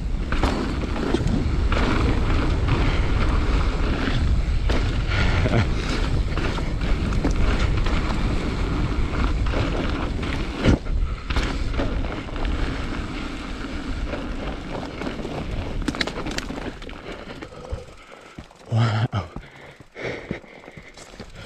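Transition Patrol mountain bike being ridden along a dirt trail, heard from a camera on the rider: wind buffeting the microphone over tyres rolling on dirt and pine needles. The frame and chain rattle, and there are sharp knocks over bumps, the loudest about halfway through. The noise grows quieter and patchier in the second half as the bike slows.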